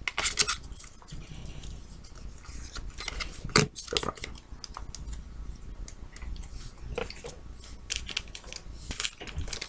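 Trading cards being handled and sorted: soft rustles and scattered light clicks and taps as cards are shuffled between the hands and set down on a wooden table, with a couple of sharper taps a little past the middle, over a steady low hum.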